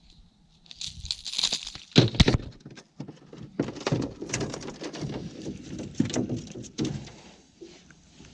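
Irregular knocks, clicks and clatter of handling gear in a small fishing boat, loudest about two seconds in, with a brief rustling hiss just before.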